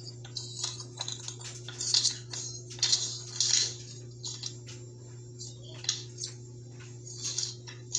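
A sheet of paper rustling, with small clicks and taps, as a toddler handles it, heard through a phone's speaker over a steady low hum.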